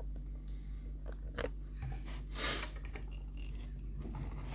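Light handling noises: a few small clicks and, about halfway through, a short hiss like a sniff or a rustle, over a steady low hum.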